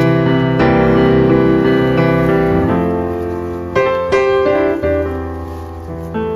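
Background piano music: notes and chords that strike and ring out as they fade, with fresh notes struck a little under four seconds in.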